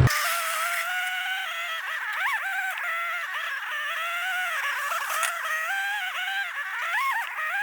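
Background music: a melody line with gliding notes and no bass.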